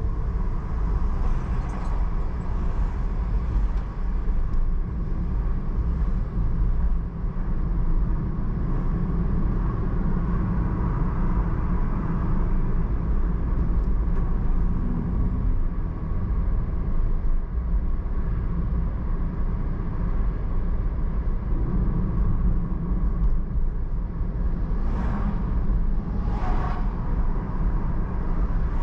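Steady low rumble of a car driving along city roads. Near the end come two brief louder noises about a second and a half apart.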